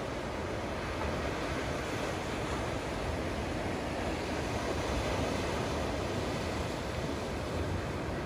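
Small sea waves breaking and washing onto the beach, a steady rush of surf.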